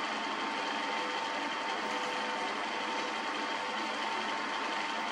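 Steady machine noise with a constant hum, unchanging throughout.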